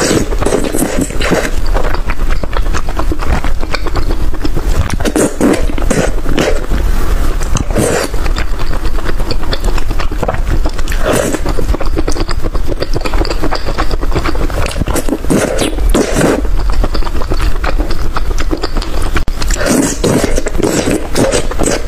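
Loud close-up eating sounds: chewing and mouth noises, with many short clicks and crackles.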